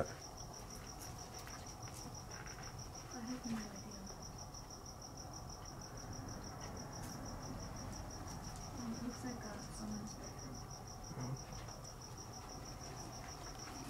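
A steady, high-pitched insect trill, pulsing rapidly and evenly, with faint low voices murmuring a few times.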